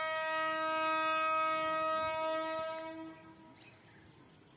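Horn of an Indian Railways WAG12B electric freight locomotive, one steady, long blast that fades out about three seconds in.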